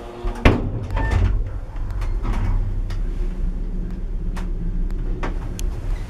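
Zremb passenger lift setting off: a loud clunk about half a second in, then the car's steady low running hum as it travels, with a few scattered clicks.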